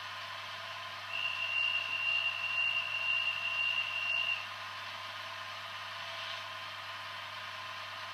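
Jouef X 72500 model railcar's sound decoder playing a steady diesel idle through its small speaker. About a second in, a loud, high, single-pitched warning tone joins it for about three seconds, then stops.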